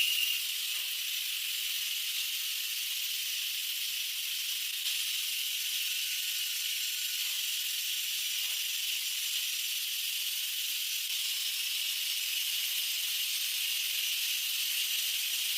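Steady hissing noise, even throughout and brightest in the upper middle range, after a brief louder onset at the very start.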